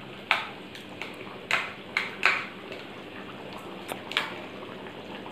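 A spoon stirring and mashing tamarind pulp in water in a small plastic bowl, giving about five short scraping clinks. The loudest comes a little past two seconds in.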